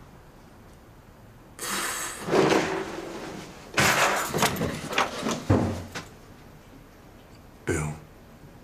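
Several bangs and scuffling knocks, with the sharpest knock about five and a half seconds in and another bang near the end.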